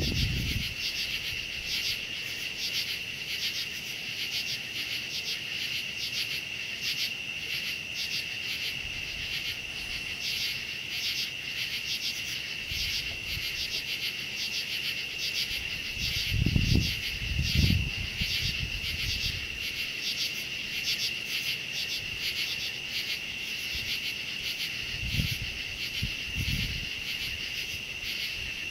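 Chorus of night insects: a steady, high, rapidly pulsing trill. A few short low rumbles break in about halfway through and again near the end.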